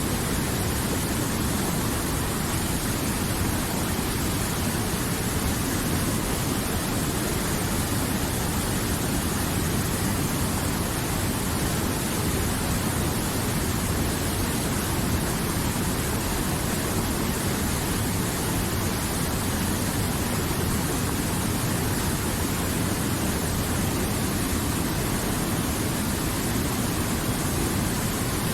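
River water flowing: a steady rushing wash with no breaks or changes.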